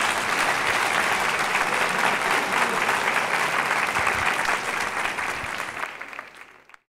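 Audience applauding, a dense steady clapping that fades away near the end and then cuts off.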